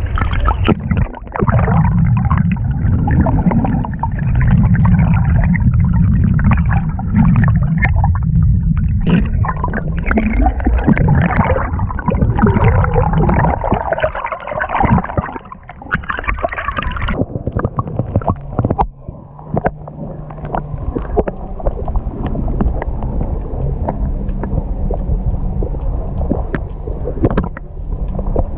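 Seawater sloshing and gurgling against an action camera held half-submerged beside a paddled kayak, with knocks and splashes. For the last third or so the sound turns muffled and dull, as heard with the camera under the surface.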